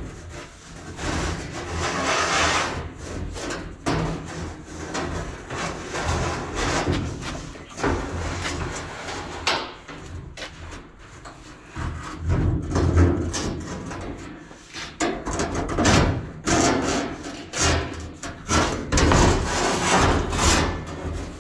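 Irregular knocks, thumps and scraping of a laser-cut steel floor panel being handled and set into a pickup cab for a test fit.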